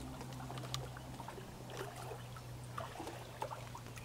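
Faint water lapping and trickling around a long-handled dip net held still in river water, with scattered small drips and taps, over a steady low hum.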